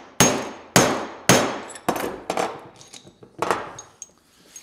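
A hammer striking an old oxygen-sensor socket to drive a new press-fit ball bearing down onto a wood shaper's spindle. There are three ringing metal clangs about half a second apart, then a few lighter metal knocks and clinks as the bearing is seated.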